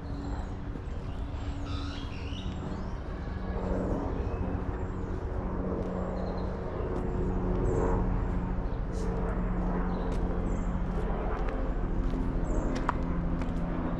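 Outdoor park ambience: small birds chirping in short high calls over a steady low hum and rumble, with a few sharp clicks in the second half.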